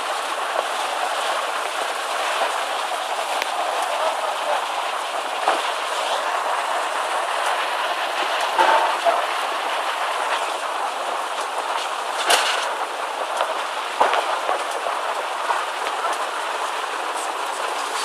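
Muddy floodwater rushing over a paved forecourt and street, a steady loud wash of water noise. A few sharp knocks stand out, the clearest about twelve seconds in.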